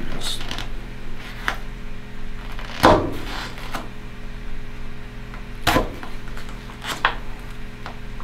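A screwdriver grinding against rubber hose and a plastic nut as the hose is twisted and forced into the nut, giving a handful of short scraping sounds. The strongest come about three seconds in and just before six seconds.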